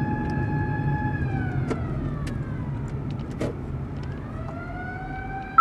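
Fire vehicle's wailing siren on an emergency run. It holds a steady pitch, falls away from about a second in, then winds back up near the end, over the low rumble of engine and road heard from inside the cab. A few light clicks fall in the middle.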